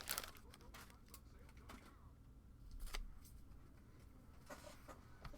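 Near silence in a small room, broken by a few faint clicks and rustles of trading cards and packaging being handled, the loudest about three seconds in.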